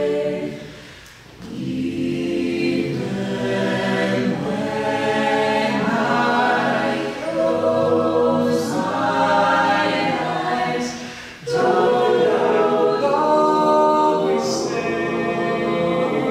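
Collegiate a cappella group singing sustained, shifting chords in close harmony, with a few short hissing accents. The sound falls away briefly about a second in and again shortly past the middle, then comes back in full.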